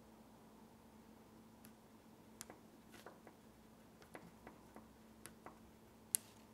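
Wax crayon tip clicking against paper as letters are written: a scatter of faint, irregular clicks, with one sharper click near the end, over a faint steady hum.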